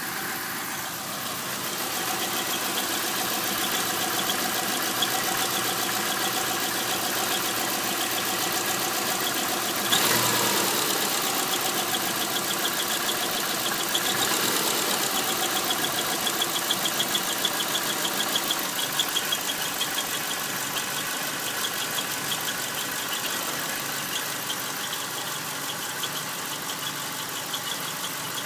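Subaru EJ251 2.5-litre flat-four idling with a pulsing high-pitched squeal, blipped briefly about ten seconds in and again a few seconds later, the revs falling back to idle each time. The owner places the squeal near the transmission flange, has ruled out the belts, tensioners, accessories and release bearing, and wonders whether it is a crankshaft bearing failing.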